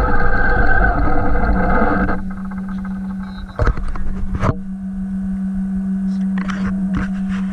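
Traxxas MAXX electric RC monster truck driving, with loud motor and rattling drive noise for about two seconds. It then stops, leaving a steady low hum broken by two sharp knocks near the middle.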